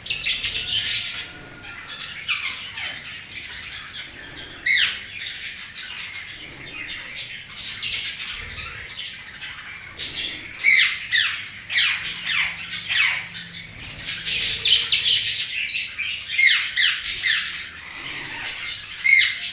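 Pet budgies and a parrot chattering and squawking: a dense, unbroken run of short, sharp downward chirps and squawks, with louder calls standing out about 5, 11, 16 and 19 seconds in.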